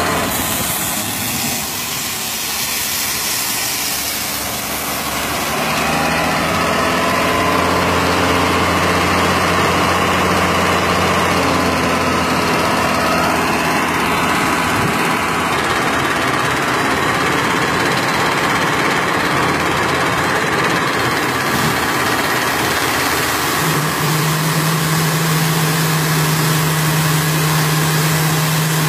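Heavy diesel engine of quarry machinery running steadily with a low drone. Its speed rises about six seconds in, and a stronger steady note comes in about three-quarters of the way through.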